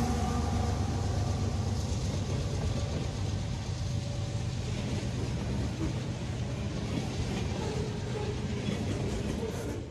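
Freight train cars rolling past close by: a steady rumble and clatter of steel wheels on the rails.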